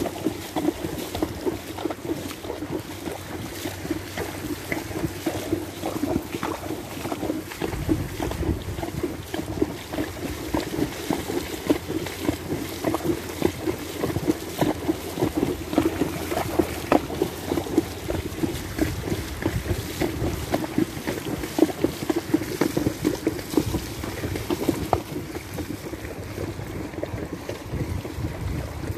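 A palomino mare's hooves splashing steadily through shallow floodwater as she walks, a dense run of irregular sloshes and splashes. Wind buffets the microphone from about a quarter of the way in.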